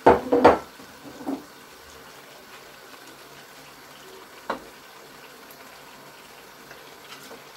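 Pot of stew frying with a faint steady sizzle while cooked meat pieces are scooped from a plate into it with a plastic spoon. A few loud knocks come in the first second and a single sharp click about four and a half seconds in.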